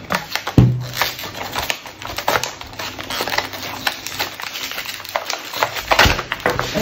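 Stiff plastic blister packaging of a colored pencil set being pried and peeled open by hand: irregular crackling and clicking of the plastic, with dull knocks about half a second in and again near the end.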